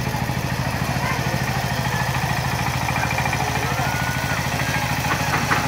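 Single-cylinder diesel engine of a two-wheel power tiller pulling a BARI seeder, running steadily with an even, rapid chug.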